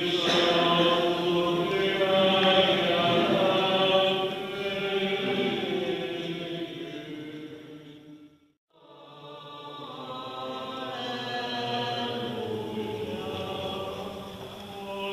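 Several voices singing a Byzantine-rite liturgical chant in long, sustained lines. The singing fades to silence just past the middle and fades back in.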